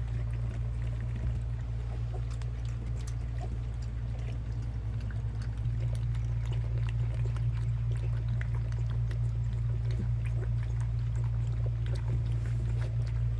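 Labrador retriever puppies lapping and slurping from a feeding bowl, a busy run of small wet clicks, over a steady low hum.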